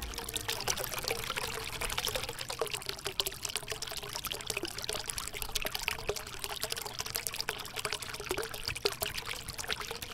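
Water trickling and splashing steadily, a dense patter of small drips and clicks.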